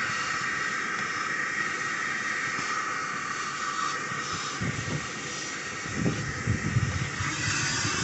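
Coin-operated car wash vacuum running with a steady rushing hiss as its hose is worked around a car's interior, with a few low bumps and rubs from the nozzle about halfway through and again near the end.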